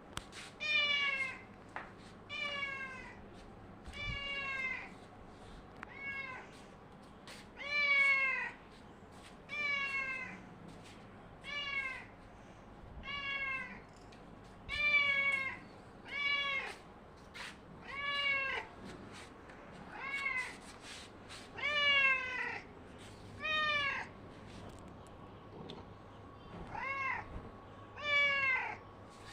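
A domestic cat meowing over and over, about one meow every two seconds, each call rising and then falling in pitch.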